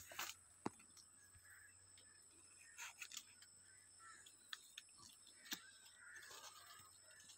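Near silence broken by a few scattered soft clicks and rustles, typical of a handheld phone brushing against dry grass and cane leaves as it is moved through them.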